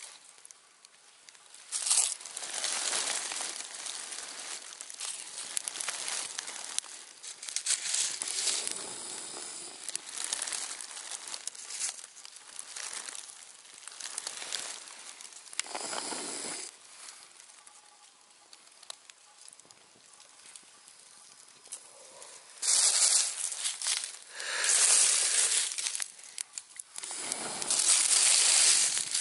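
Campfire burning, crackling and hissing in uneven swells, with the loudest surges near the end.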